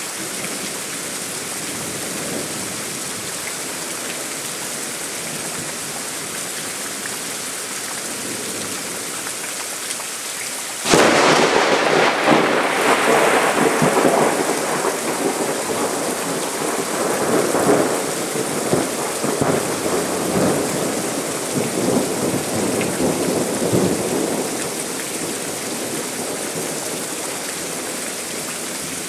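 Steady rain falling, then a sudden clap of thunder about a third of the way in that rolls and rumbles for over ten seconds before fading back under the rain.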